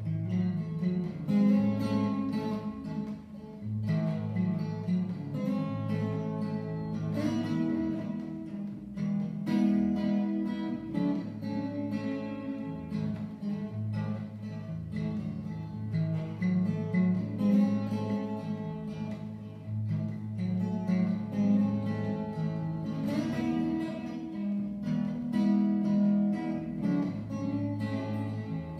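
Steel-string acoustic guitar played solo: plucked and strummed chords in a steady rhythm, with the chords changing every second or two.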